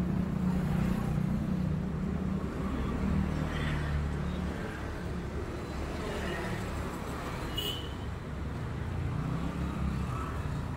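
City road traffic: motor vehicle engines running steadily, with a short high squeak about three-quarters of the way through.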